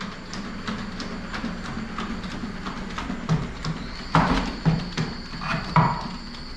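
Unitree Go2 Pro quadruped robot walking, its feet tapping lightly about three times a second over a steady hum. About four seconds in a high motor whine joins, and a few louder thumps follow as its feet strike the doorway threshold stepping out.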